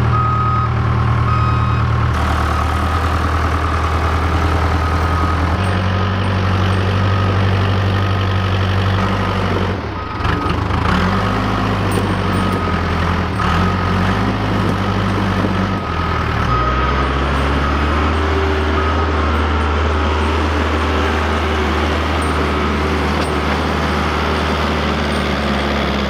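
Case 580K backhoe's diesel engine running, its speed shifting up and down several times as the machine manoeuvres. A back-up alarm beeps steadily through roughly the first half.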